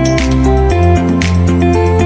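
Background music: a calm electronic track with a steady beat, sustained melodic notes and a bass line that changes note about a second in.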